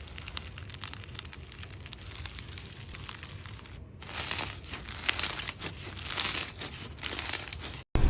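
Slime being squished and pressed, with many small crackling, crinkling clicks. It gets a little louder after a cut about four seconds in.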